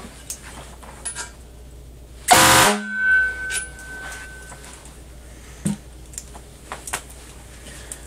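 Fire truck air horn giving one short, very loud blast a little over two seconds in, with a thin high tone trailing off for about a second after it. The owner feels the horn still needs tuning to sound louder.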